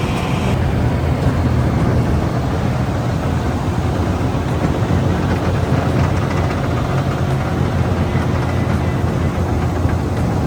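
Wood chipper running steadily, shredding oilseed rape straw into loose insulation.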